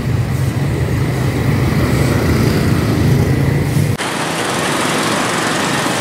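Road traffic of cars and motorcycles passing close by with a steady, low engine rumble. About four seconds in, the sound cuts abruptly to a different, hissier traffic background.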